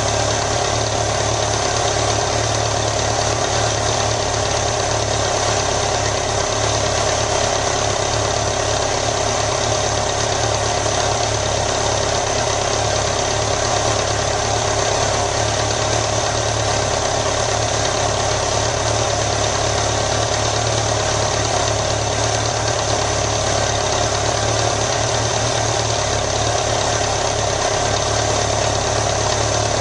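2001 BMW K1200 RS's four-cylinder engine idling steadily.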